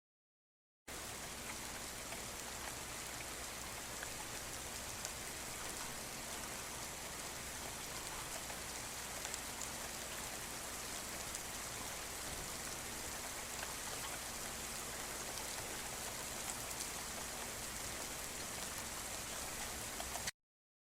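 Steady rainfall, an even hiss of many drops with scattered small ticks. It starts abruptly about a second in and cuts off abruptly near the end.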